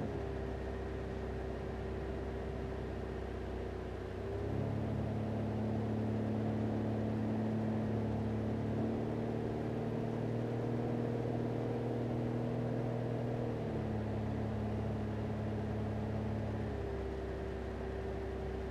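Single-engine light aircraft's piston engine and propeller droning in the cockpit during approach. About four and a half seconds in the engine grows louder and its note changes as power is added, and it eases back around fourteen seconds and again near the end.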